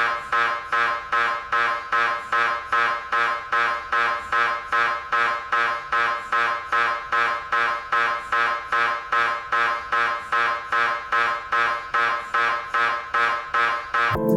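Philips Achieva 3T MRI scanner running a scan sequence: its gradient coils give an evenly repeating pitched pulse, about two and a half a second, that starts suddenly and cuts off just before the end.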